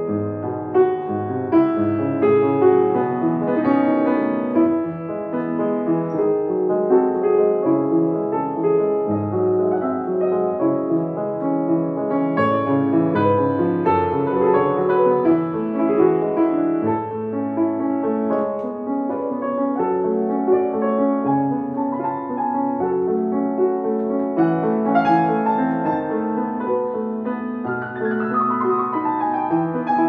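Grand piano played solo: classical music in a continuous flow of notes that hardly lets up.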